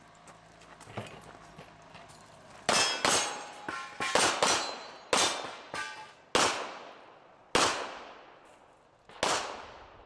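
About ten pistol shots fired at an irregular pace during a stage, beginning about two and a half seconds in. They come in quick pairs and runs at first, then further apart with gaps of over a second near the end. A few have a brief ringing after them.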